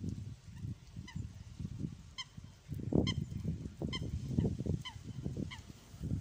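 A water bird calling: a run of short, clear calls about once a second, each rising slightly. Under them, gusty wind rumbles on the microphone, and this rumble is the loudest sound.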